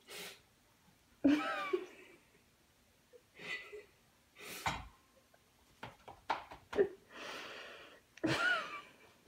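A few sharp clicks and knocks of a fork and tongs being handled on a kitchen counter, with a rustle near the end. Two short vocal sounds, gasps or laughs, come early and near the end.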